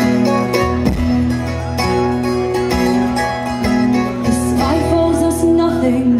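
Live acoustic guitar music: an instrumental passage of a song, with the guitar strumming steadily.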